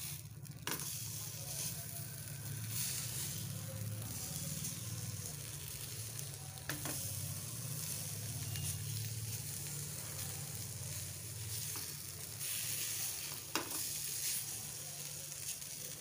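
Potato and poha cutlets sizzling on a hot nonstick pan with no oil, their moisture hissing steadily against the pan. A few sharp taps come from the silicone spatula as they are flipped, one at the start, one about halfway and one near the end.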